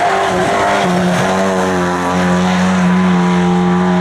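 Race car engine running hard. Its pitch wavers and dips in the first second, then holds nearly steady.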